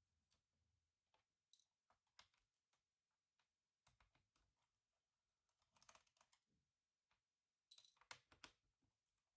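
Faint, scattered small clicks and taps of a Samsung R538 laptop's parts being handled during disassembly, with two busier clusters of clicking near the middle and near the end.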